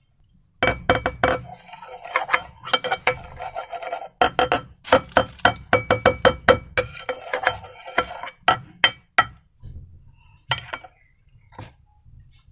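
Slime being worked by hand, giving a dense run of sticky, wet clicks and crackles that thins out to a few isolated clicks near the end.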